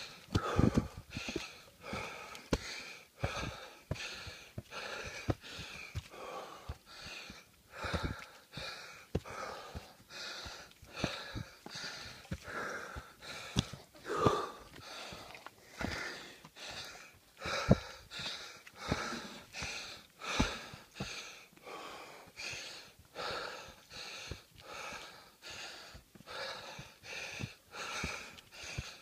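A hiker panting hard in a quick, even rhythm from the exertion of climbing a steep uphill trail, with thumps of footsteps on the dirt.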